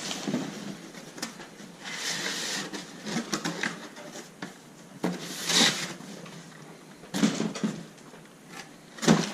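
Cardboard box and packaging being handled as an RC truck is lifted out: rustling, with a few louder scrapes and knocks.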